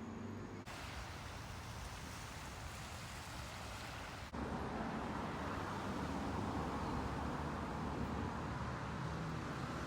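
Lakeshore outdoor ambience: a steady rushing noise that changes abruptly about a second in and again about halfway, becoming louder after the second change.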